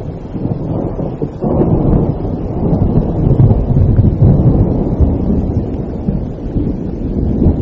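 Rolling thunder rumbling over steady rain, building about a second and a half in and easing off toward the end.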